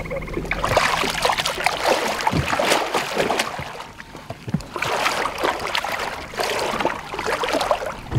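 Water splashing and sloshing in a landing net beside the boat as a big muskellunge is grabbed and handled. The splashing comes in two spells, with a short lull about four seconds in.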